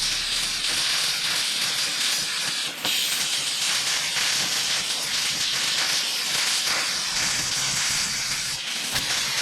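Angle grinder grinding down a hardened Hardox steel bracket: a steady, loud hiss of disc on steel, briefly easing once about three seconds in.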